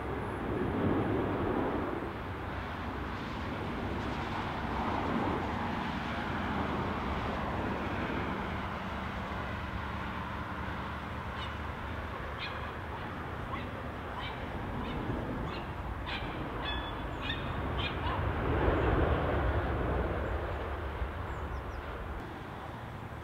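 Edelweiss Air Airbus A340-313's four CFM56 jet engines heard at a distance as the airliner arrives to land, a broad rumble that swells near the start and again near the end.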